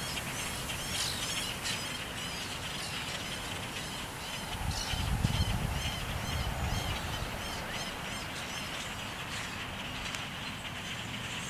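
A huge flock of grackles calling all at once: a dense din of many short, high calls over a steady chatter. About halfway through, a low rumble swells for two or three seconds.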